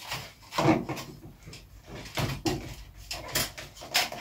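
Hands and a hand tool working inside an opened sheet-metal fluorescent light fitting: irregular clicks, knocks and scrapes.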